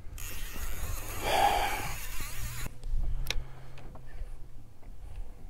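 A long, breathy exhale close to the microphone for about two and a half seconds, then a few sharp clicks over a steady low hum.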